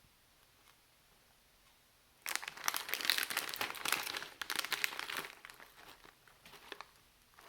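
A plastic Gamjakkang potato-snack bag crinkling as it is handled, starting suddenly about two seconds in, densest for about three seconds, then thinning to a few scattered crackles.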